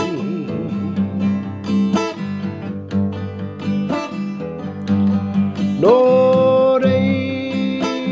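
A man singing a Māori-language waiata to his own acoustic guitar, strumming a chord about every two seconds. His voice wavers on a long note at the start, then about six seconds in slides up into another long held note.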